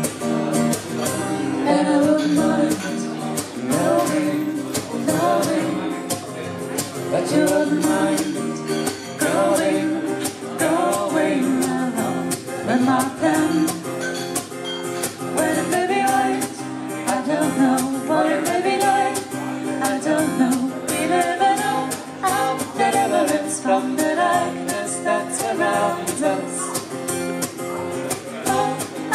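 Live duo singing, a man's and a woman's voices together, over a strummed guitar with a steady beat.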